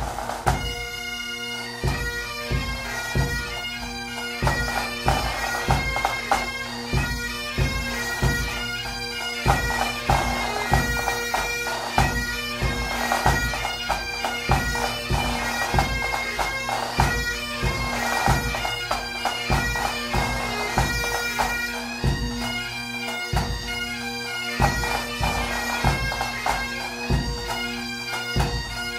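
Bagpipe music with drums: a melody played over a steady drone, with a regular drumbeat.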